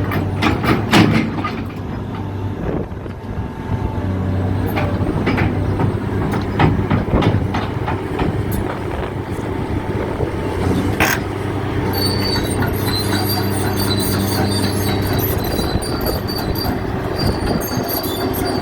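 Caterpillar 330DL crawler excavator running, its diesel engine a steady low hum with metallic clanks. About two-thirds of the way through, a high squealing from the steel tracks sets in and carries on over the engine.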